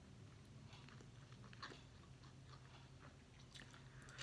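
Faint eating sounds: chewing and mouth noises with a few light clicks as a metal spoon scoops soup broth from a bowl and is brought to the mouth, over a low steady room hum.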